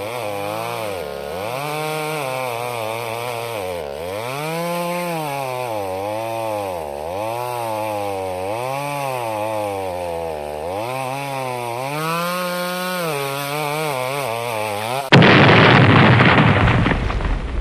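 Chainsaw running, its engine speed rising and falling over and over, about once a second. About fifteen seconds in it cuts off abruptly, and a sudden, much louder crash or boom takes over and dies away over a couple of seconds.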